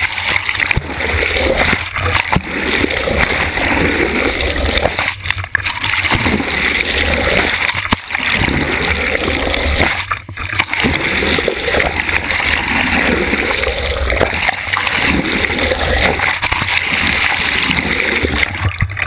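Water rushing and splashing over a GoPro camera held underwater on a boat hook and dragged along beside a moving boat. The rush drops out briefly a few times.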